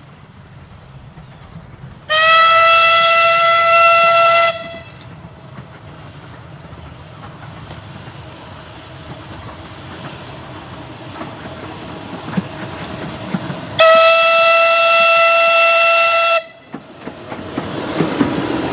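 Narrow-gauge steam locomotive whistle: two long blasts about eleven seconds apart, each held on one steady note for about two and a half seconds. Between them the train's running grows steadily louder as it approaches and comes close near the end.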